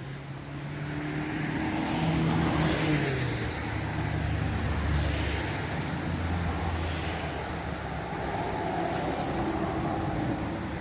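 Road traffic: motor vehicles driving past, an engine hum with tyre noise that swells and fades, loudest about two to three seconds in and again around five seconds in.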